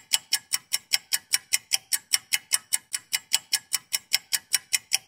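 Rapid, very regular ticking, about five sharp ticks a second.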